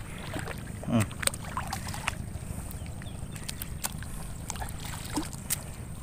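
Water and mud sloshing in a flooded rice paddy, with scattered small splashes as seedbeds are worked by hand.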